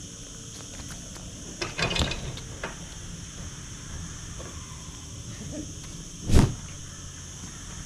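Footfalls of a player's run-up and jump on an outdoor hard court: a cluster of thumps about two seconds in, then one loud, short thud late on, over a steady high hiss.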